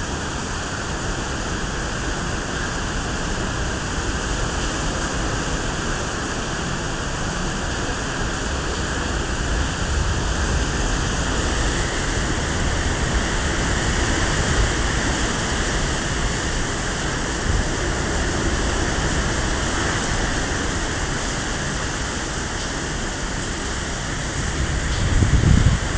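Typhoon wind and rain, a steady heavy rushing, with wind buffeting the phone's microphone in low rumbles and a stronger gust about a second before the end.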